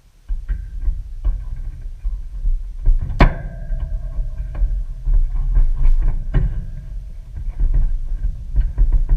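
Pliers and wire terminals clicking and rattling in an air-conditioner condenser's control panel, with one sharp ringing metal clink about three seconds in. A heavy low rumble starts suddenly just after the start and runs under it.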